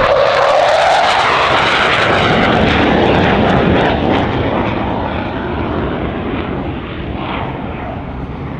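Douglas A-4 Skyhawk jet on a high-speed pass: a loud jet rush with crackle that peaks in the first few seconds, then slowly fades as the jet moves away.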